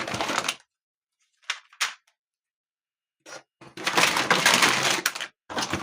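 Plastic Hot Wheels track pieces and toy parts being rummaged through and handled, rustling and clattering in bursts, the longest starting a little under four seconds in.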